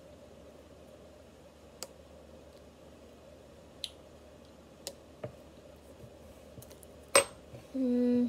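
A girl tasting a jelly candy: a few small sharp clicks, then a louder click, and right at the end a short, steady hummed 'mmm' with her mouth closed.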